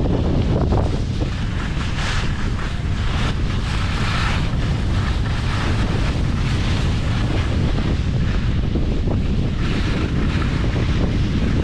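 Wind buffeting the microphone as a heavy, continuous low rumble, with a rushing hiss that swells and fades every few seconds.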